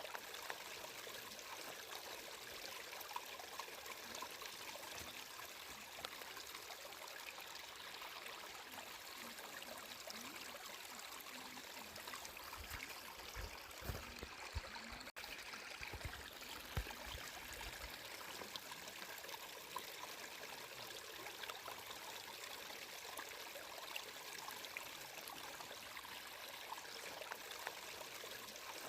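Flowing water running steadily, a constant trickling wash full of small splashes. It is broken by a few low bumps in the middle.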